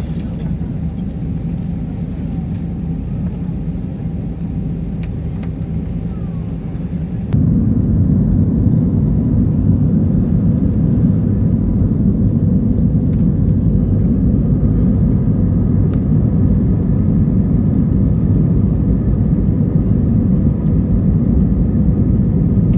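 Jet airliner taxiing: a steady low rumble of engines and rolling, which jumps abruptly louder and heavier about a third of the way in and then holds steady.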